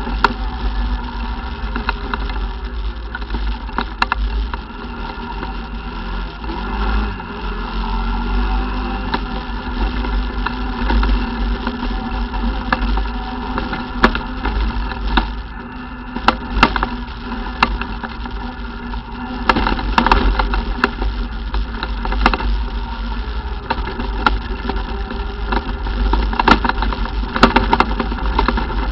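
ATV engine running steadily during a ride, its pitch shifting a little, with frequent sharp knocks and rattles and a heavy low rumble throughout.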